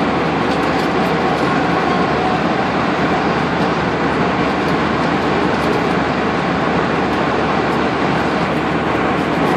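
Steady cabin noise of an Airbus A320 in flight, heard from a window seat by the wing: the jet engines and airflow make an even, unchanging rush.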